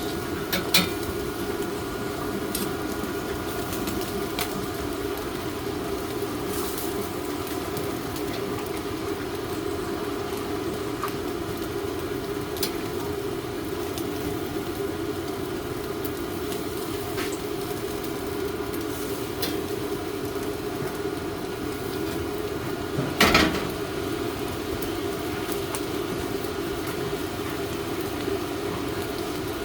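Steady low hum with scattered clinks of dishes and utensils; one louder clatter about 23 seconds in.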